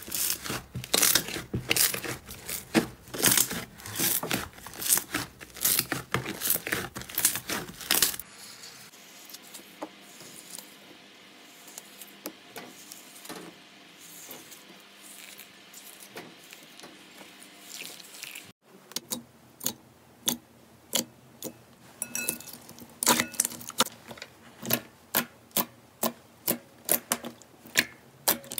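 Hands kneading and squeezing slime, making dense crackling and popping clicks. About eight seconds in the sounds turn to soft, faint squishing of a glitter slime. Near the middle the crisp pops come back, about two a second, as fingers press into a clear pink slime.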